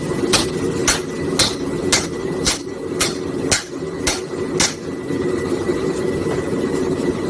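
Hammer striking a chisel into a hot railroad spike, about two blows a second, stopping about two-thirds of the way through. Under it, the steady roar of the gas forge's burners.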